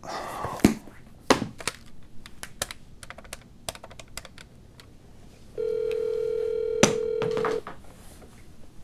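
Desk telephone in use: the handset is lifted with a clunk, then its keypad buttons are pressed in a quick run of a dozen or so plastic clicks. After that a steady ringing tone sounds from the earpiece for about two seconds as the number rings out.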